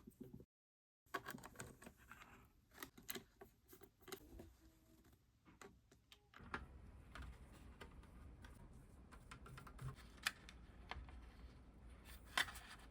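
Faint, scattered clicks and taps of plastic parts being handled, as the cordless stick vacuum's housing is fitted back together.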